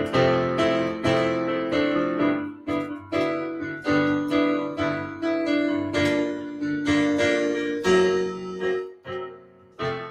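Piano keyboard played by hand: chords and melody notes struck one after another, each ringing and fading, with a short pause about nine seconds in.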